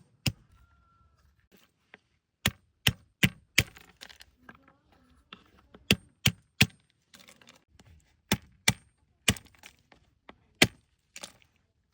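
Sharp knocks or cracks, about a dozen, mostly in quick runs of two or three strikes that repeat every two to three seconds.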